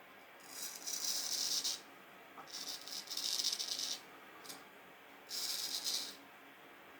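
Vintage straight razor scraping through thick stubble in four separate raspy strokes, each about a second long with short pauses between.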